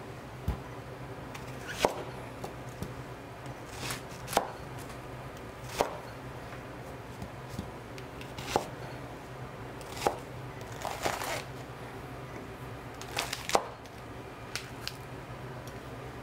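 Chef's knife cutting onion and green onions on a plastic cutting board: separate sharp knocks of the blade striking the board, about one every second or two, some in quick pairs.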